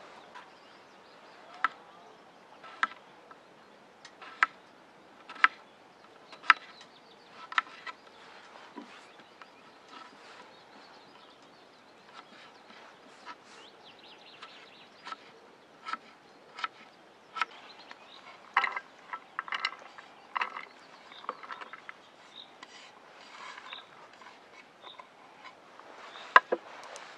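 Kitchen knife chopping a carrot on a bamboo cutting board, a sharp knock about once a second as each cut strikes the board, with more knocks and clatter later.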